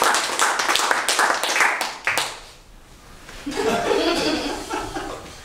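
Small audience clapping, dying away after about two and a half seconds; voices follow near the end.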